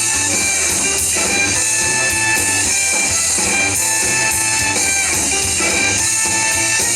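Music: an instrumental stretch of a pop song, with no singing.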